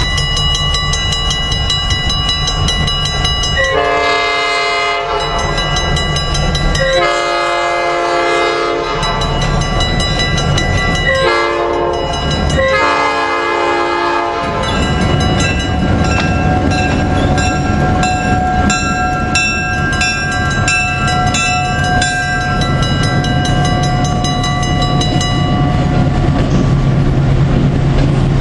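Diesel locomotive horn, a several-note chime, sounding the crossing signal of long, long, short, long. The locomotive's diesel engine and wheels then pass close by, with faint regular clicking from the rails.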